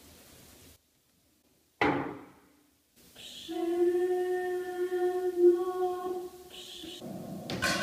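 Recorded samples played back when the objects are touched through a Playtronica touch-to-sound controller: a sudden knock about two seconds in that dies away, then a long held pitched note from about three seconds, and a fuller, louder pitched sound coming in near the end.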